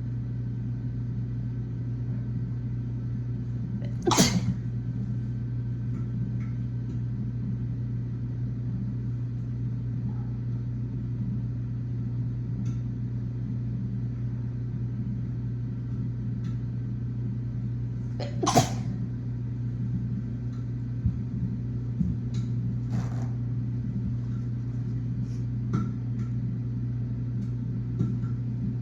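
A woman sneezing twice, about four seconds in and again about fourteen seconds later, over a steady low hum. A few light clicks and knocks fall between and after the sneezes.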